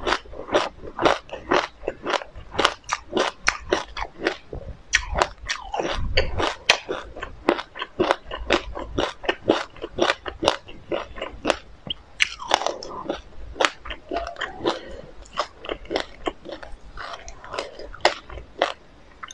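Close-up chewing of a mouthful of sesame seeds: rapid, crisp crunching chews, a few a second, one after another.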